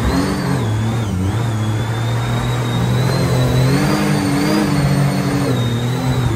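Jet boat engine running at speed, its pitch rising and falling with the throttle, with a high whine that follows it and the rush of water.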